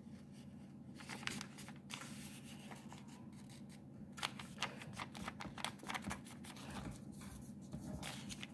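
Origami paper being folded in half and creased by hand: faint, irregular crackles and rustles of the paper.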